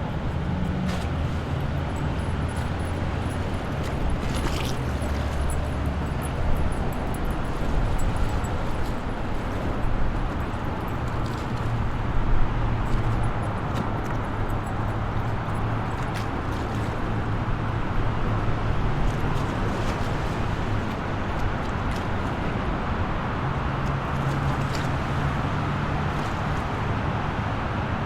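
Highway traffic ambience: a steady wash of passing vehicles with a low engine rumble that shifts in pitch from time to time.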